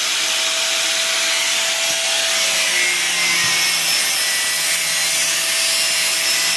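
Hand-held angle grinder with a cutting disc biting into the workpiece: a loud, steady hissing scream with a faint steady hum under it.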